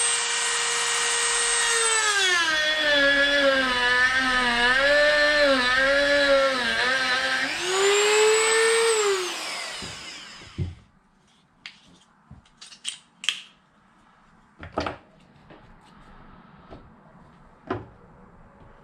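Dremel rotary tool whining at full speed, then bogging down to a lower, wavering pitch as it cuts into the RC car's battery tray, rising again when it comes free and winding down about halfway through. After that, a few light clicks and knocks of handling.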